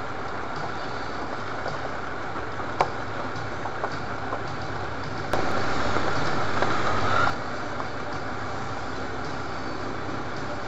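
A 4x4's engine and tyres running steadily as it drives slowly down a rough track, heard from inside the cabin. There is a sharp knock about three seconds in, and an abruptly louder stretch of about two seconds in the middle.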